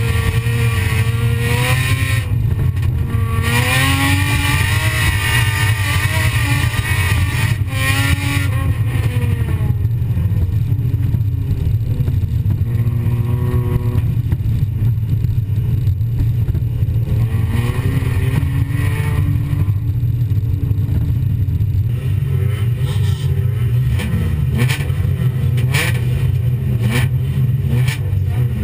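Folkrace car's engine heard from inside the cabin, revving up and falling back again and again as it is driven hard on a dirt track, over a steady low drone. Several sharp knocks come near the end.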